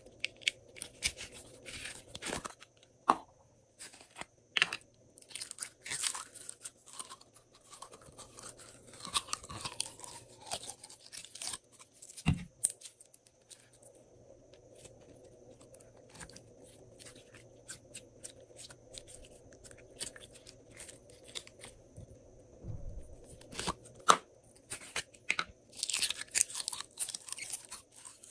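Glossy slime being mixed and squished: irregular sticky clicks, crackles and pops, thickening into dense runs of crackling at times.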